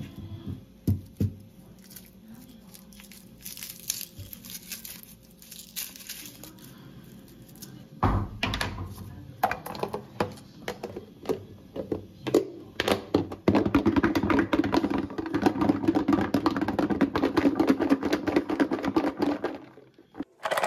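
Garlic cloves shaken hard inside a closed plastic food container to loosen their skins: a loud, dense, fast rattle of cloves knocking against the plastic that starts a little past halfway and runs about six seconds before stopping abruptly. Before it come crinkling of papery garlic skin and scattered knocks as the head is broken up and the cloves go into the container.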